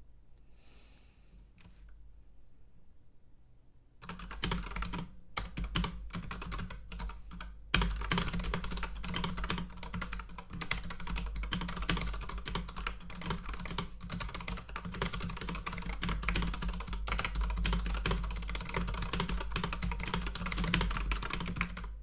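Fast typing on a computer keyboard during a typing speed test. After about four seconds of near quiet, a burst of keystrokes begins, pauses briefly, and from about eight seconds on turns into steady, rapid clicking.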